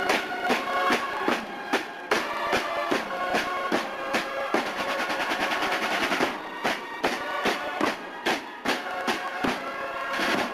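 Cornet-and-drum marching band playing a march: bugles carrying the tune over snare and bass drums beating steadily, with a snare roll in the middle.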